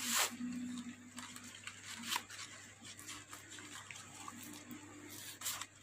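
Scattered rustles and light knocks of small items and packaging being handled and rummaged through out of reach of the microphone, with a louder rustle at the start and another near the end. A faint steady low hum runs through the first two seconds.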